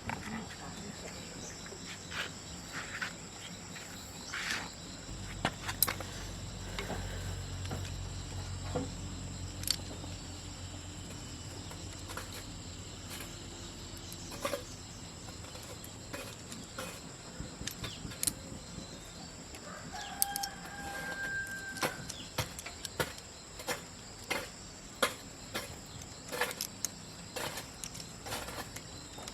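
Scattered sharp clicks and taps, a low rumble for a few seconds in the first third, and one short pitched animal call about two-thirds of the way through.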